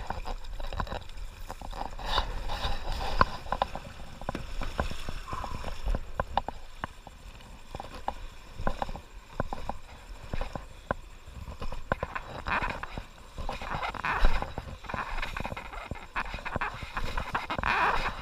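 Irregular knocks and taps on a plastic sit-on-top kayak, over the rush and splash of shallow river water, which grows louder in the last few seconds.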